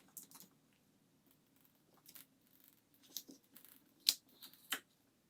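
A plastic card scraping and prying under a MacBook Pro battery that is stuck down with adhesive. Scattered short scrapes and clicks, the sharpest about four seconds in.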